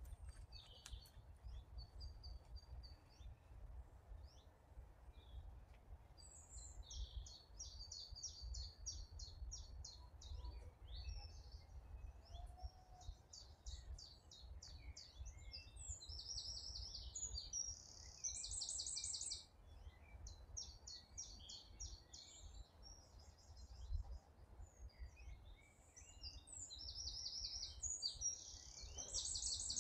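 Songbirds singing: many short, rapid high trills and chirps, coming thicker from a few seconds in, over a faint steady low rumble.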